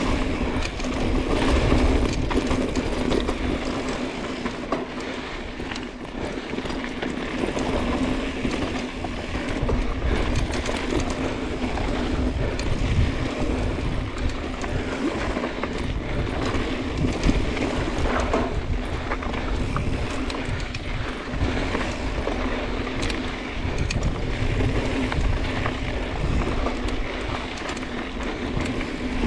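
Mountain bike descending a dry, rocky dirt singletrack: a continuous rumble of tyres rolling over dirt and gravel, with the bike's chain and frame clicking and rattling over the bumps.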